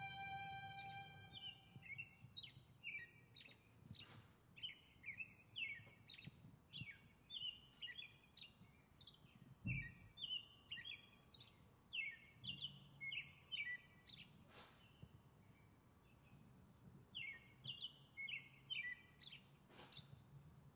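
A songbird singing a long run of quick, short downslurred chirps, with a pause of about two seconds near the end before it starts again. A last guitar chord dies away at the start, and there is a single soft thump about halfway through.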